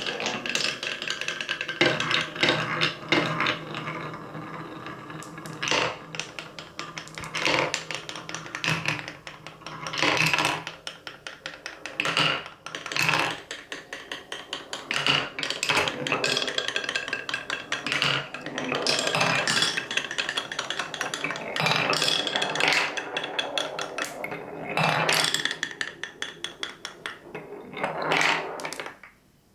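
Glass marbles rolling down a wooden marble run's wave-bump tracks and through its block channels, rattling in quick rhythmic clatters that rise and fall in waves, with wooden knocks and a ringing roll. Near the end they roll into the curved wooden end trays and come to rest, and the sound stops suddenly.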